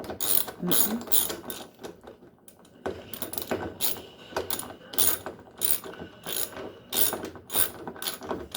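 Hand ratchet wrench clicking as a bolt is turned while a washer's suspension damper is being fitted: irregular clicks at first, then a steady run of about two clicks a second from about three seconds in.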